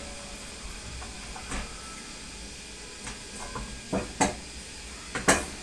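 Knocks and clinks of a cooking pan and utensils as raw chicken thighs are put into the pan on the stove, the loudest knocks near the end, over a steady faint hiss.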